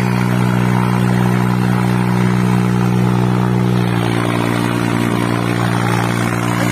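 Small orchard tractors' diesel engines running steadily under heavy load as the two tractors pull against each other on a rope. The pitch shifts slightly about four seconds in.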